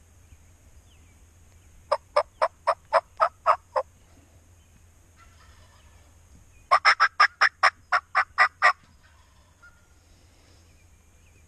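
Two runs of turkey yelps. About two seconds in comes a run of about eight evenly spaced notes, and past the middle a louder, quicker run of about ten.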